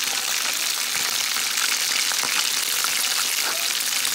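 Chicken pieces frying in hot oil in a pan: a steady sizzle with scattered crackles and pops.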